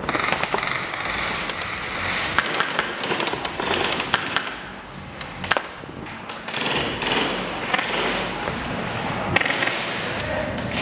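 Airsoft guns firing, with bursts of sharp rapid shots that cluster about two to four seconds in and again near the end.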